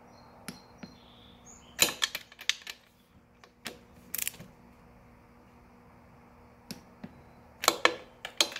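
Socket wrench ratcheting in short runs of clicks, with single metallic clicks between them, as the cylinder head nuts of a 2001 Yamaha YZ125 two-stroke are tightened to torque.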